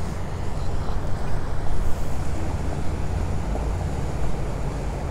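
Steady, uneven low rumble with a faint hiss above it, from a motorboat running across the inlet.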